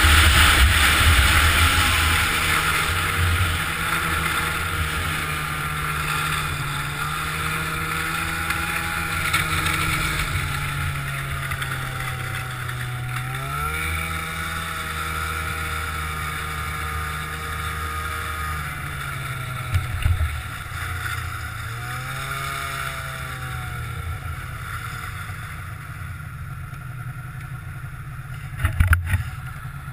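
Snowmobile engine running under way, with wind rushing past. Its pitch rises sharply about halfway through and rises and falls again shortly after, then it runs quieter toward the end, with a couple of short knocks.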